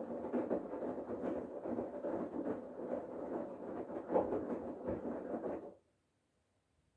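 Bosch Serie 8 front-loading washing machine's drum turning in the main wash, laundry and water sloshing inside. It stops abruptly near the end, as the drum halts between tumbles.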